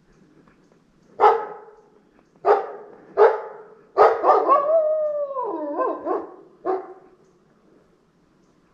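Gray wolf barking at close range: four sharp barks, then a short wavering bark-howl, then one last bark.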